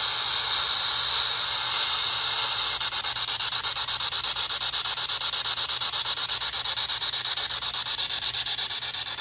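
PSB7-Pro spirit box sweeping through radio frequencies: harsh static hiss that switches on abruptly and is chopped into a rapid, even stutter as it steps from station to station.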